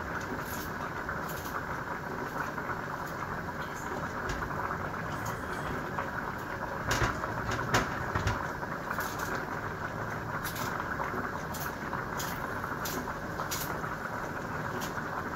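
Vegetables being washed at a steel kitchen sink: a steady rushing noise with scattered clinks and knocks, the two loudest about seven and eight seconds in.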